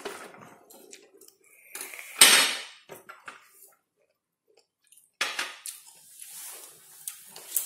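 Breathy hissing exhales of vape vapour, with a short sharp clatter of objects being handled on a table about two seconds in.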